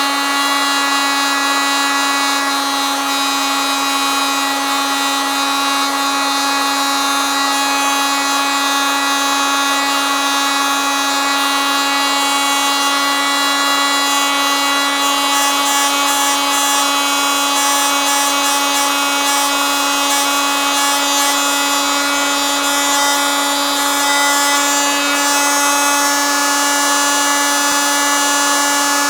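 Electric oscillating multitool running steadily, a loud buzzing whine that holds one pitch.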